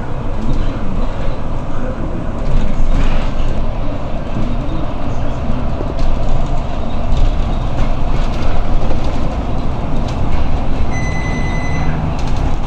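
Cabin noise of an articulated city bus under way: steady engine and road noise with occasional rattles. A single electronic beep, held for about a second, sounds near the end.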